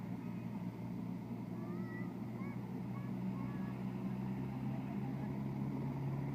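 Helicopter engine and rotor running steadily on the ground before liftoff, a continuous low hum.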